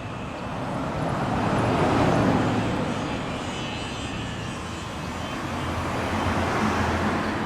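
Road traffic passing: one vehicle's noise swells and fades about two seconds in, and another rises near the end.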